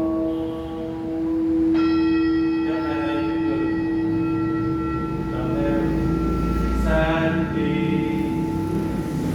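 Tibetan singing bowls ringing: a low bowl hums steadily throughout, a higher bowl is struck about two seconds in and rings on with several clear overtones, and a few more strokes follow later.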